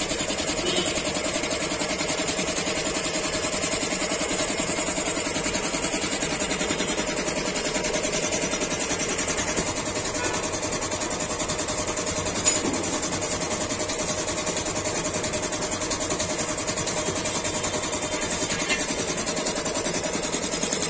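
Belt-driven 1 hp air compressor running steadily, its electric motor driving the finned single-cylinder piston pump with a fast, even beat as it pumps up the tank toward its automatic cut-out pressure of about 7 kg. One sharp click about twelve seconds in.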